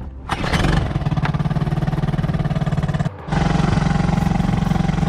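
Small outboard motor on an inflatable dinghy starting up and then running steadily with a fast, even putter. The sound breaks off briefly about three seconds in and then carries on.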